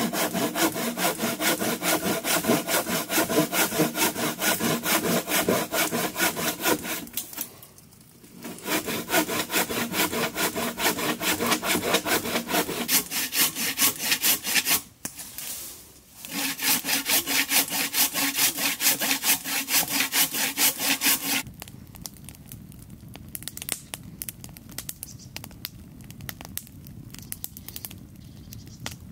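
Hand saw cutting wood in fast, even back-and-forth strokes, in three runs with short pauses between them. After about 21 seconds the sawing stops and only faint scattered crackles remain.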